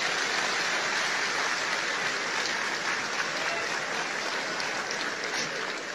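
Audience applauding steadily, easing slightly toward the end.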